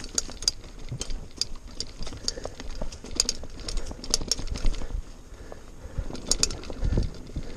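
Mountain bike rolling over a rough, leaf-strewn dirt trail: a steady rumble with frequent irregular sharp clicks and rattles from the bike, and a heavier thump about seven seconds in.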